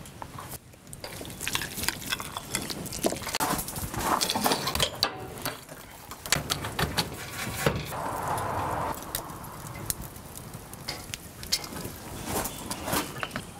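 Kitchen utensils clinking, tapping and scraping in food preparation, a string of short knocks at uneven intervals, with a short stretch of steady hiss about two-thirds of the way through.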